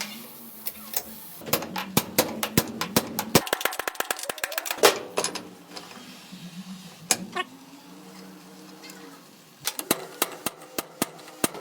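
Quick runs of sharp metallic clicks and taps from hand tools working on the axle. There is a dense run in the first half, a pause, then another run near the end.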